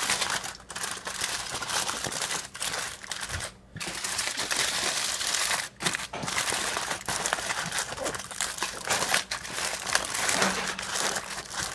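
Aluminium foil crinkling and crumpling as it is folded and crimped by hand into a packet, in long stretches broken by a few brief pauses.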